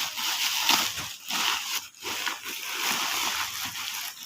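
Plastic packaging rustling and crinkling as it is handled, in irregular scratchy strokes.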